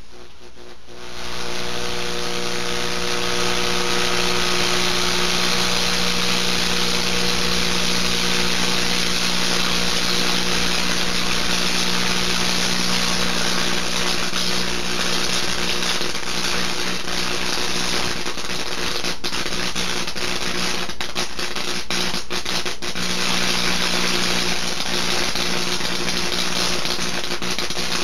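A pickle electrocuted with mains current through two forks, sizzling with a loud steady hiss and an electrical buzz as it glows, starting about a second in. A run of sharp crackles comes past the middle as it arcs at the fork contacts.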